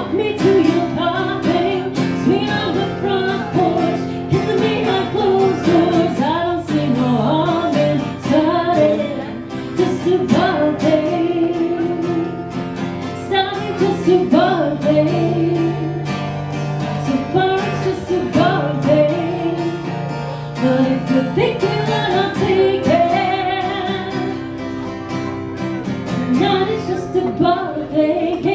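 A woman singing a country song live into a microphone while playing an acoustic guitar.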